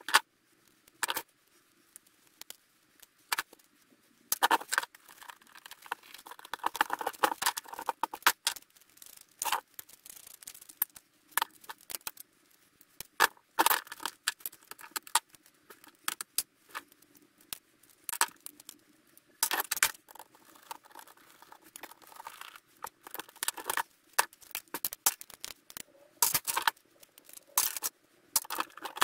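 Small hand tools and metal parts handled while a VHS player's tape transport mechanism is taken apart: a screwdriver and pliers working on the metal chassis, giving irregular clicks and clinks with stretches of scraping.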